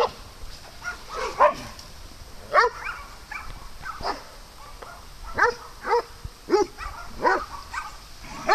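Dog barking in short, separate barks, about a dozen of them, coming more often in the second half.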